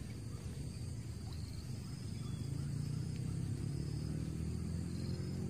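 A steady low rumble with no clear events, and faint high insect-like chirring above it.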